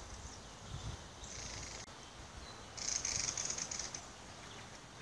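A pet's fluttering, purr-like breathing rasp, coming in two bursts about a second and a half apart, the second louder.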